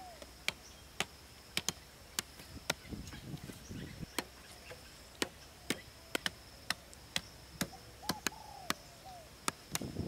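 Machete chopping into a wooden pole: sharp, unevenly spaced chops, about two a second.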